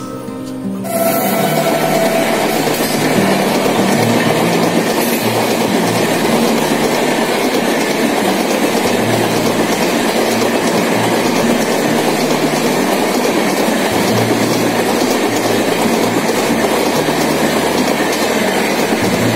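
Ranchi Rajdhani Express coaches passing at speed close by: a loud, steady rush of wheels running on the rails. It starts abruptly about a second in.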